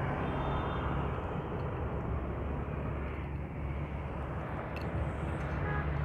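Steady low rumble with a hiss of outdoor background noise, with a few faint clicks near the end.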